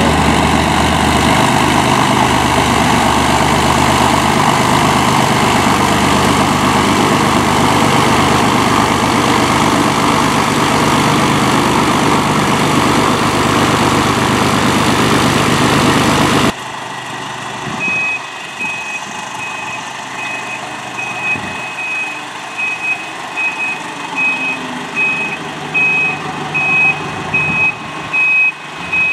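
Cessna 172M's four-cylinder Lycoming O-320 engine at full takeoff power as the plane lifts off and climbs out, loud and steady. It cuts off abruptly about two-thirds of the way through, leaving quieter background noise in which a vehicle's reversing alarm beeps at a steady, even rate.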